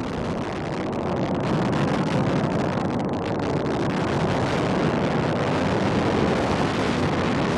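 Antares rocket's two AJ26 kerosene first-stage engines heard from the ground during ascent: a steady, deep rumble that swells slightly over the first couple of seconds, then holds.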